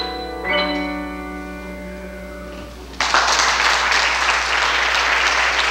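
Grand piano's final chord struck and left ringing, slowly dying away. About three seconds in, audience applause breaks out suddenly and carries on.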